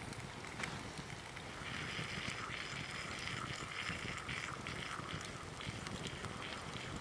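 Cream being poured in a thin stream over grated cheese and sliced potatoes in a pan, a steady pattering pour from about two seconds in that stops near the end, with sharp crackles from the wood fire throughout.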